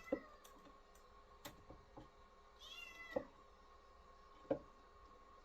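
Pet cat meowing once, about halfway through, over a faint steady hum, with a few sharp taps or clicks, the loudest just after the meow and about a second later.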